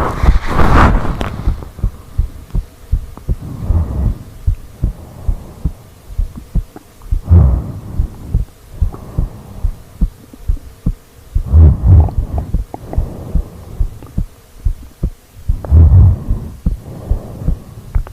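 A sleeping woman's heartbeat picked up close through her body: a steady run of soft low thuds. A deep sleeping breath swells over it about every four seconds.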